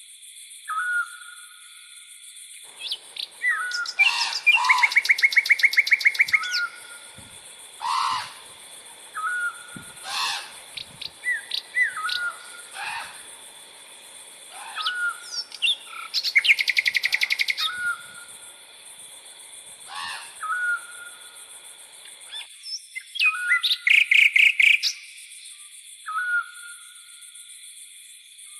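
Tropical forest birds calling: a short repeated note about every two seconds, several scattered chirps, and three loud, rapid trills. A steady high-pitched drone of crickets runs underneath.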